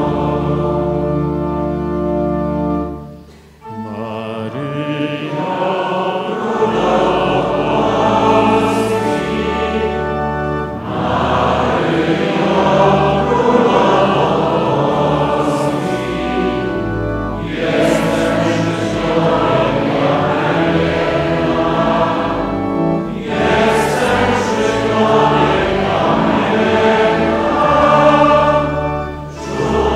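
A large choir of men sings a slow hymn in long held phrases, with sustained low organ-like tones beneath the voices. There is a brief pause between phrases about three seconds in.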